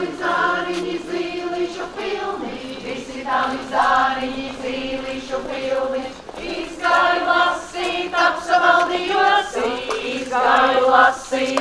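A group of folk singers, mostly women's voices, singing a Latvian folk song together in short repeated phrases, the accompanying song of a ring dance (rotaļa).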